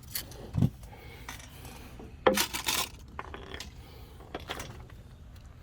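Metal hand tools and parts clinking and scraping, with a louder half-second metallic clatter a little over two seconds in.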